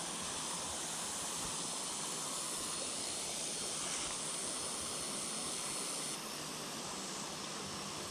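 Steady rushing hiss of water pouring over a small spillway: an even, pitchless noise that eases slightly about six seconds in.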